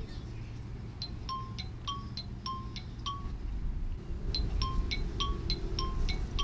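Short bell-like chime notes in a quick even run, about three a second, pausing briefly near the start and again in the middle, over a steady low rumble.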